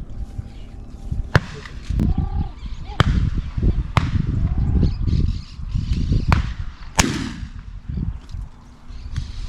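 Shotgun shots, five cracks at uneven intervals, the last followed by a short echo, with low wind rumble on the microphone between them.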